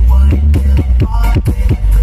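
Loud electronic dance music with very heavy, sustained bass and a fast, steady beat of about four strokes a second, played through a large outdoor sound system stacked with subwoofers.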